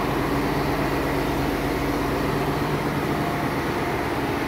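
Steady low drone of a city bus engine running close by, with a constant hum and no change in pitch.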